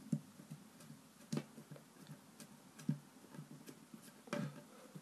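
Hands pressing and patting play dough flat on a wooden tabletop: soft, irregular taps and knocks, the sharpest a little over a second in, about three seconds in, and a longer cluster near the end.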